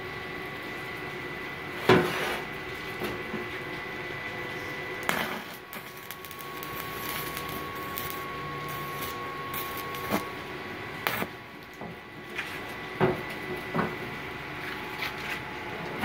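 Stick (MMA) welding arc from a Multipro MMA 200G KR inverter welder with a cast-iron electrode on a cast iron stove burner ring: a steady, smooth crackle and hiss with a thin steady whine. It is broken by several sharp clicks and knocks, the loudest about two seconds in.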